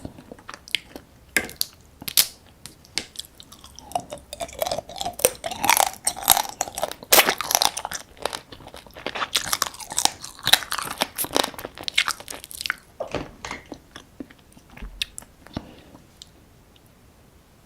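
Close-miked eating sounds: crunching, biting and chewing of soy-sauce-marinated raw crab, with sharp crackles, densest in the middle and thinning out near the end.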